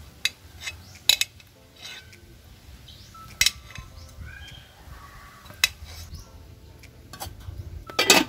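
Metal fork clinking against a ceramic bowl and a metal pot as boiled sweet potatoes are forked out: a handful of sharp clinks a second or two apart, the loudest near the end.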